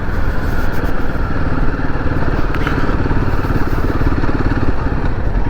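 Royal Enfield Himalayan 450's single-cylinder engine running steadily while the motorcycle is ridden along at an even speed.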